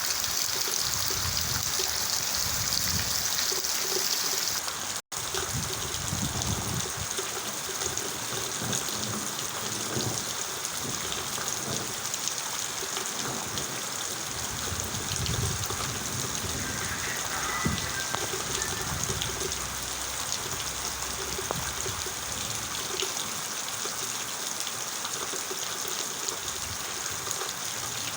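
Steady rain falling, an even hiss of water. The sound drops out for an instant about five seconds in, and the rain then continues slightly less bright.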